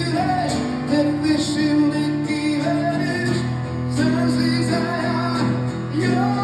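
Live band music, a pop-rock song with guitar, and a voice singing over it.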